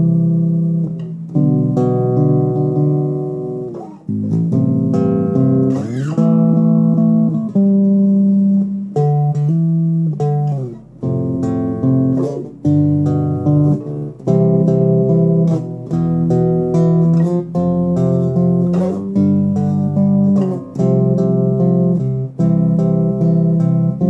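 Solo bass guitar played finger-style, plucking chords and a melody line together with ringing notes; a few notes slide in pitch.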